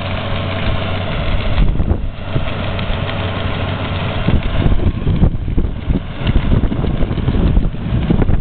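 Tractor engine running steadily as it pulls a working rear-beater manure spreader spreading its load. Gusts of wind buffet the microphone in the second half.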